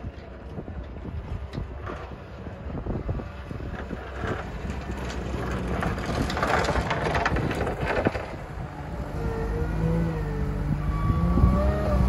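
JCB 409 wheel loader with a snow plow approaching and passing close: a rough scraping rush of the plow pushing snow, loudest about six to eight seconds in, then the loader's diesel engine coming up clearly and getting louder, its pitch rising and falling near the end. Wind gusts buffet the microphone throughout.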